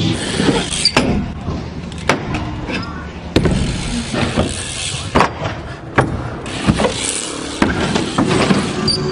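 BMX bike riding on skatepark ramps: tyres rolling with a steady rushing noise, broken by irregular sharp knocks and clacks from the bike hitting and landing on the ramps.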